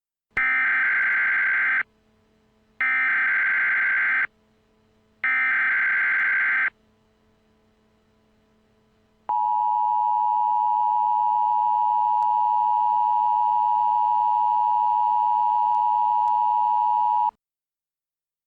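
Emergency Alert System alert tones. First come three short, equal bursts of SAME header data, each about a second and a half long with about a second between them. A few seconds later the steady two-tone EAS attention signal sounds for about eight seconds and cuts off abruptly.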